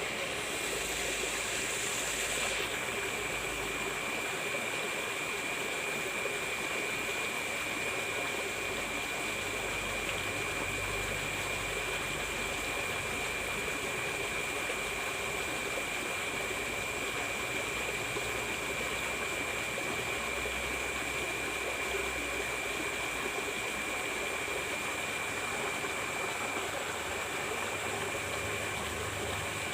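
Water running steadily in a ditch swollen after rain, an even rushing noise, with a thin steady high-pitched tone over it.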